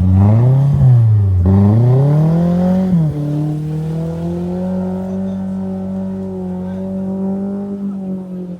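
Lada Niva engine revved up and down three times in quick succession, then held at steady high revs.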